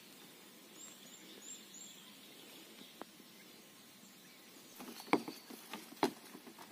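Faint outdoor ambience with a bird giving four quick, high rising chirps near the start, then a run of knocks and thumps from about five seconds in, the loudest two about a second apart.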